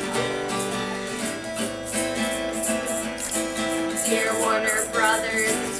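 Acoustic guitar strummed in a steady rhythm as the opening of a song; a woman's singing voice comes in about four seconds in.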